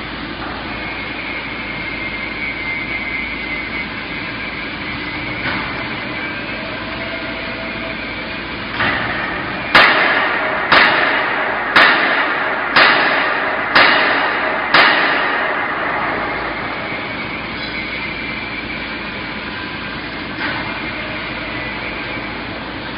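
Automated bag palletizing line running with a steady hum of conveyors and machinery. Partway through come six loud bangs about a second apart.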